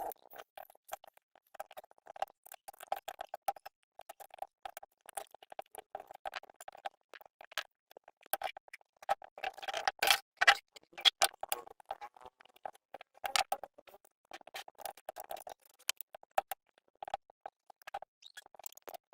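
Irregular bursts of rapid clicking and light metallic clatter from hand tools working on the generator's parts, with a louder clatter about ten seconds in.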